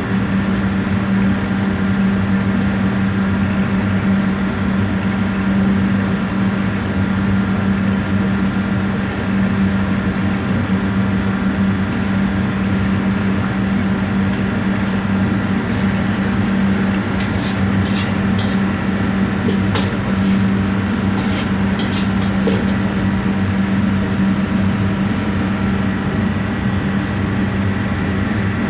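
A steady, loud mechanical drone with a constant low hum, and a few light clicks and clatters a little past the middle.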